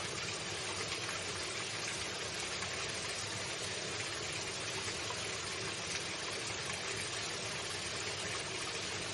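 Running water, a stream's steady, unbroken rush.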